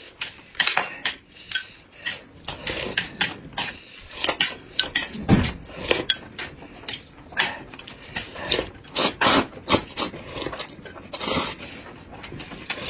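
Eating sounds at a dining table: a metal spoon clinking and scraping in a glass cup and chopsticks tapping a plate, in irregular clicks, with short sips and slurps in between.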